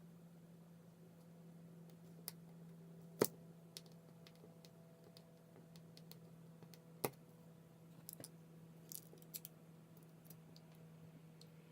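Faint, scattered small clicks and taps of tools and phone parts being handled during an iPhone 5s repair, over a steady low hum. The two sharpest clicks come about three seconds in and about seven seconds in, with a few lighter ones around eight to nine seconds.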